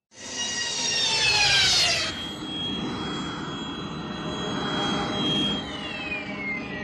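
Sci-fi spaceship engine sound effect: a whining jet-like engine sound that starts abruptly, glides down in pitch for about two seconds, holds a steady high whine over a rumble, then glides down again near the end.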